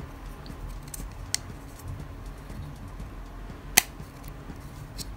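Hard plastic parts of a Tamiya Mini 4WD AR chassis clicking as a small red gear is worked into place by hand; the part is a stubborn, tight fit. A faint click comes about a second and a half in, and one sharp, much louder click near four seconds in.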